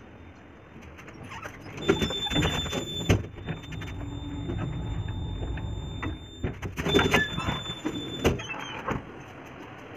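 Collapsible steel grille gate of an old passenger lift pulled shut with a rattling metal clatter and squeal. A steady hum and thin high whine follow while the lift runs, then the grille is rattled open again about seven seconds in.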